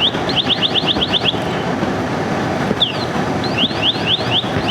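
Car alarm going off in runs of quick rising chirps, about eight a second, broken by short pauses, over a steady low rumble.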